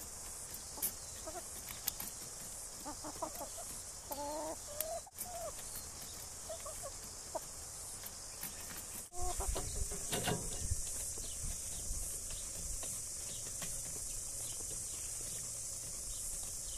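Chickens clucking in short, scattered calls over a steady high hiss. About nine seconds in, a low rumble sets in and the clucks get louder for a couple of seconds.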